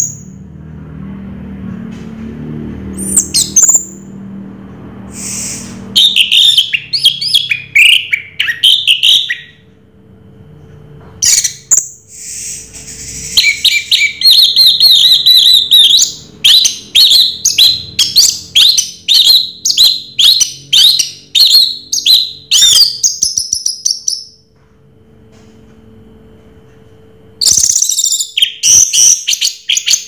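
Orange-headed thrush (anis merah) singing loudly in bursts of varied, fast whistled phrases, with a long run of rapid repeated notes in the middle. It pauses for a few seconds near the end before one more burst.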